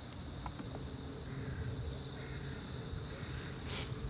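Insects singing a steady, unbroken high-pitched trill, with a faint pulsing note above it, over a low steady rumble. A brief rushing sound comes near the end.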